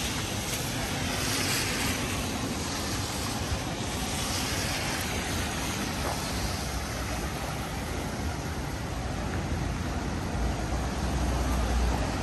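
Wet city street ambience: a steady hiss of rain and passing traffic on wet road, with a low rumble swelling near the end as a vehicle passes.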